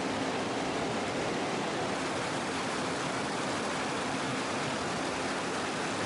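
Mountain river rapids rushing steadily over rocks, a constant, even wash of water noise.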